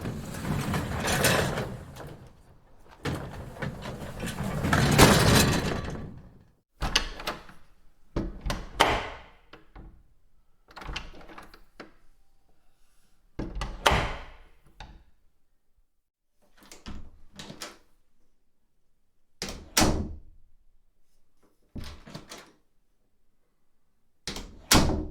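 Scrap metal rattling for about the first six seconds. Then a series of about nine separate door thumps, each a short clunk two to three seconds apart.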